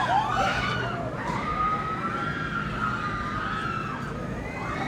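Fairground crowd at the rides, with riders screaming in the distance. Their long, swooping cries rise and fall in pitch over a steady murmur of crowd noise.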